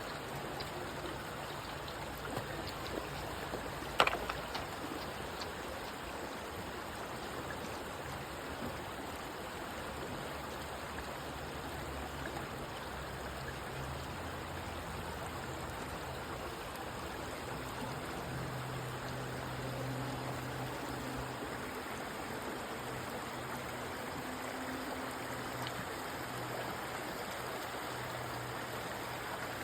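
River water rushing steadily, with one sharp knock about four seconds in.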